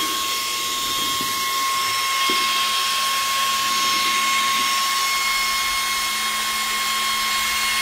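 Small high-speed fan running steadily: a constant high whine over a rush of air.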